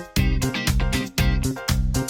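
Upbeat background music with a plucked, guitar-like part on a steady, quick beat.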